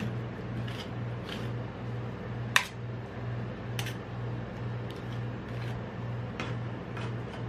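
Metal spatula tapping and scraping on the steel cold plate of a rolled ice cream pan: a handful of scattered clicks, the sharpest about two and a half seconds in. Under them runs a steady low hum that pulses about twice a second.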